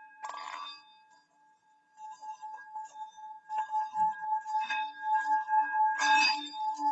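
Metal Bali singing bowl tuned to D ringing with a steady tone. It is struck lightly just after the start, then rubbed around the rim so the tone builds and pulses, with a loud clinking strike near the end.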